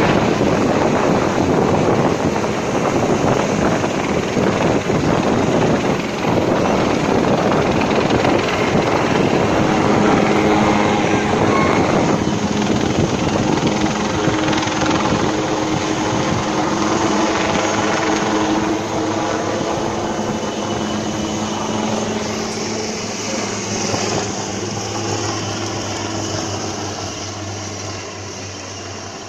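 Navy helicopter flying past, its rotor and engine noise loud and steady at first. Its hum fades gradually over the last several seconds as it moves away.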